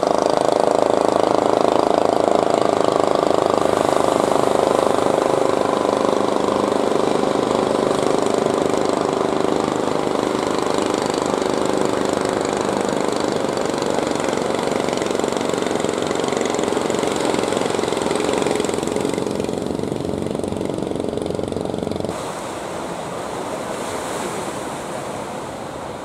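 Fishing boat engine running steadily, slowly fading, with surf and wind noise underneath. About 22 s in the engine sound drops away and only the surf remains.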